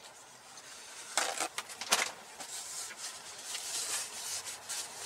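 A paper towel being handled and rubbed between the hands: a scuffing rustle about a second in, a few sharp taps just after, then a lighter, hissy paper rustle.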